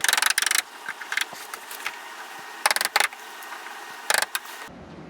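A metal doorknob and latch rattling and clicking in three short bursts as the knob is turned and worked: the first at the start, one near the middle and one near the end, with a few single clicks between.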